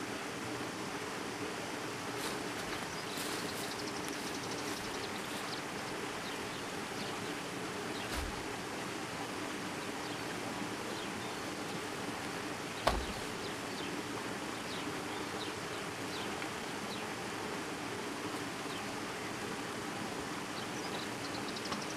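Jungle ambience: a steady rushing hiss with insects chirping faintly high up. There is a soft low thump about eight seconds in, and a sharper knock about thirteen seconds in.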